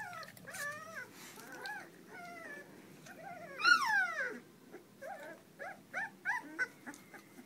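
Puppies whimpering: a string of short, high-pitched whines, with one louder, longer whine falling in pitch about three and a half seconds in, then a quick run of short whines near the end.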